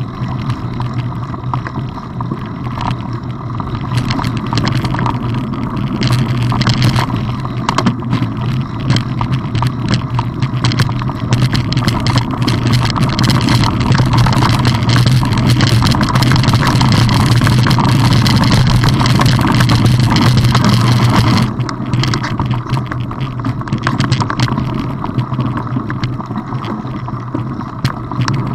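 Ride noise from a camera on a moving mountain bike: wind rumble on the microphone and the rattle and crunch of knobby tyres over a rough dirt track, a steady drone peppered with small knocks. It grows louder through the middle and drops suddenly about three quarters of the way through.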